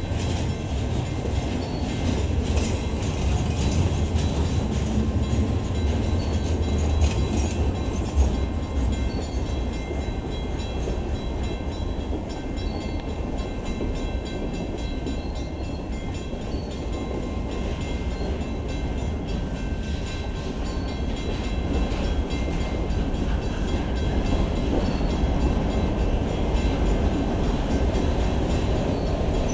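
Freight train gondolas and covered hopper cars rolling past at close range: a steady rumble and rattle of steel wheels on the rails, with a sharp clank about eight seconds in.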